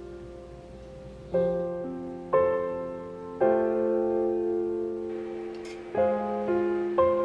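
Background solo piano music: slow, gentle chords struck about once a second, each left to ring and fade, with a longer pause midway.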